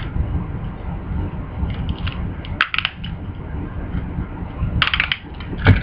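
Sharp plastic clicks of Beyblade tops and launchers being handled and readied for a launch, in a few clusters about two and a half seconds in and near the end, over a steady low rumble of handling noise.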